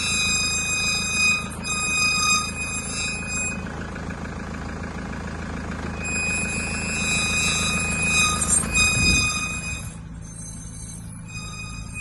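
A vehicle running with a steady low rumble, joined by a high-pitched whine that stops for a couple of seconds and then comes back.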